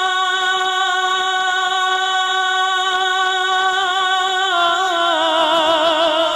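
A male naat singer's amplified voice holds one long, steady note. About four and a half seconds in, it drops in pitch and breaks into a wavering, ornamented melisma.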